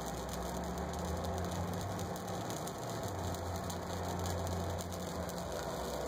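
Microwave oven transformer, rewound with a heavy 2-gauge secondary, humming steadily while its low-voltage, high-current output heats a short piece of computer metal to an orange glow. The hum is a low, even mains buzz.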